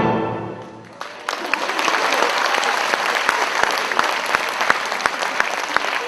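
The last chord of the dance music dying away, then an audience applauding from about a second in.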